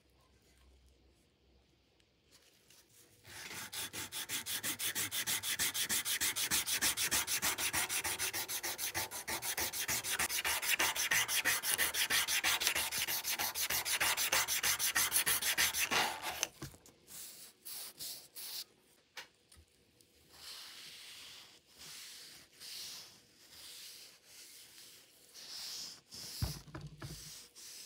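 Sanding: fast, even back-and-forth rubbing strokes start about three seconds in and run steadily for some thirteen seconds, then break into shorter, scattered rubbing passes with pauses between them.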